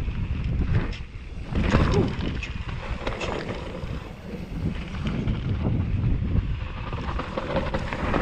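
Wind buffeting a GoPro Hero 7 Black's microphone on a mountain bike descent, a low rumble with tyre noise and scattered clicks and rattles from the bike. The noise swells briefly about two seconds in.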